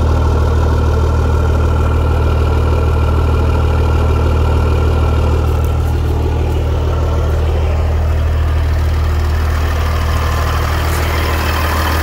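Caterpillar 3406B inline-six diesel idling steadily, with a low, even note. It is running with a freshly installed exhaust manifold and no exhaust leak audible.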